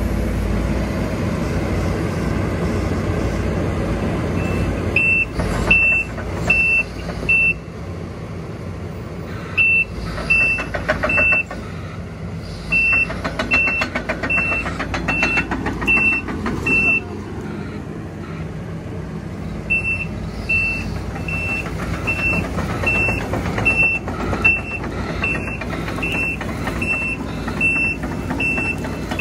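Takeuchi tracked excavator's diesel engine running, with its travel alarm beeping about twice a second in repeated spells from about five seconds in, as the machine moves.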